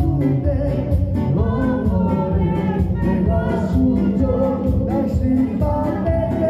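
A man singing live into a handheld microphone, with held, bending notes, over band accompaniment with a steady beat.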